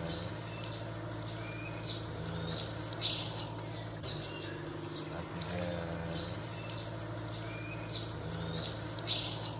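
Garden hose spraying water over a lovebird's cage while the lovebird chirps, giving two loud, shrill calls about three seconds in and near the end, over a steady low hum.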